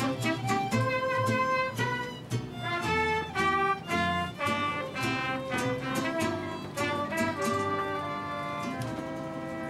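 Instrumental processional music: a violin melody over plucked-string accompaniment, settling into long held notes near the end.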